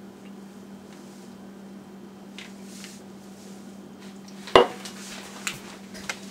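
Stemmed wine glass set down on a granite countertop: one sharp clink about four and a half seconds in, followed by a couple of lighter taps, over a steady low hum.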